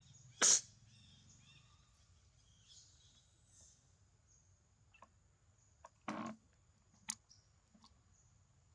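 A monkey sneezing: a sharp, short burst about half a second in, and a second, longer one around six seconds in, with a few faint clicks between.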